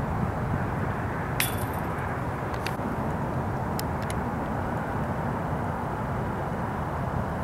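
Steady low outdoor rumble, with one sharp metallic clink that rings briefly about a second and a half in, followed by a few faint clicks.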